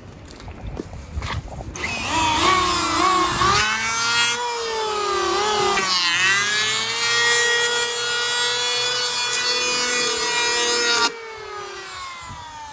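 Electric hand planer starts about two seconds in and runs while cutting along the edge of a wooden window sash, its motor pitch dipping and recovering as the blades bite. It is switched off about eleven seconds in, and the motor winds down with a falling whine.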